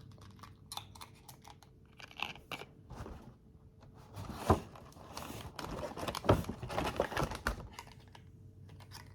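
Cosmetics packaging being handled and unwrapped: light clicks and taps, then paper or cellophane rustling and tearing from about four seconds in, with a few sharp knocks.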